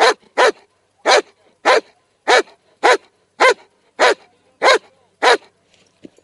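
A large black shepherd-type dog barking loudly and steadily, about ten barks in an even rhythm a little over half a second apart.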